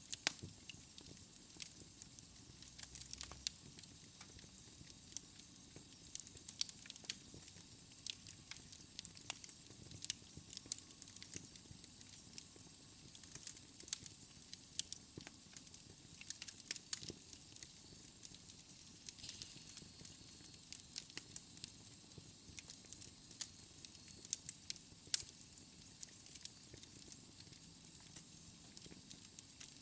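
Fire crackling: a soft steady hiss with frequent, irregular sharp pops and snaps.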